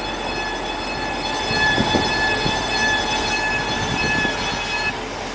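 High-pitched squealing whine from the left rear wheel hub of a Mercedes-Benz W124 E500 Limited while driving, over tyre and road rumble. The noise appears above about 40 km/h and changes tone with speed. The whine cuts out near the end.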